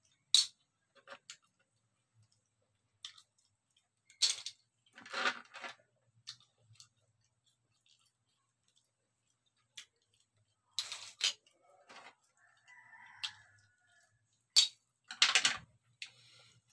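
Shellfish-eating noises: sharp clicks of seashells and chopsticks knocking on a tray, with two longer slurping sounds, one about five seconds in and one near the end.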